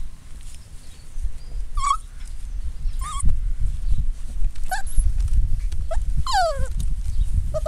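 Labradoodle puppies whimpering: a few short, high, wavering yips, then a longer whine that falls in pitch near the end, over a steady low rumble.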